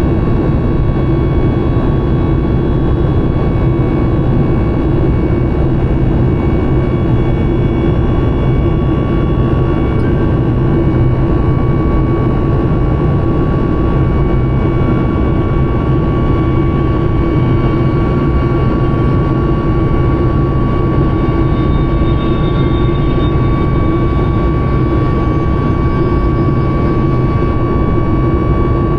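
Steady noise of a Boeing 737 MAX 9's CFM LEAP-1B jet engines and the rushing air, heard from inside the passenger cabin. A steady high whine runs over a low, even rumble.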